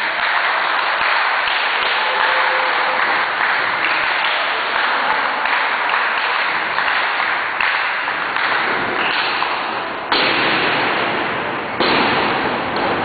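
Wrestling crowd applauding, a dense steady clapping that surges suddenly louder about ten seconds in and again near the end.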